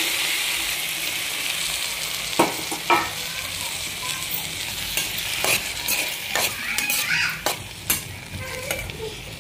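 Chopped tomatoes sizzling in hot oil in a nonstick pan with fried onions and green chillies. The sizzle is strongest as they first hit the oil and eases a little. A spoon knocks and scrapes against the pan about nine times as they are stirred.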